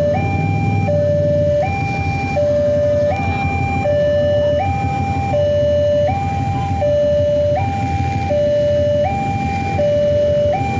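Railway level-crossing warning alarm sounding a repeating two-tone hi-lo signal, each tone held about three-quarters of a second, the signal that a train is approaching the crossing. A steady low rumble runs underneath.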